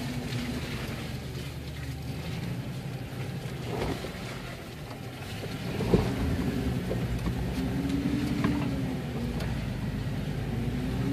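Jeep engine running at low trail speed, heard from inside the cab as a steady low rumble whose tone rises and falls a little near the end. A single sharp knock about six seconds in.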